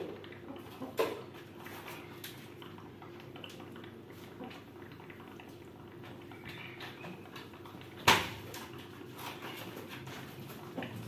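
A small dish being handled on a concrete floor: scattered light clinks and knocks, with one sharp knock about eight seconds in.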